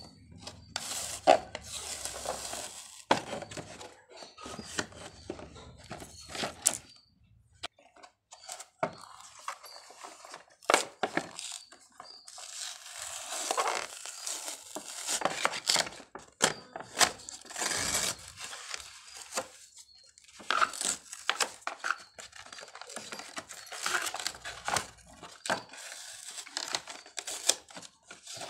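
Clear plastic blister pack and cardboard backing card of a boxed toy being handled and pulled apart: irregular crinkling and crackling with sharp clicks, pausing briefly twice.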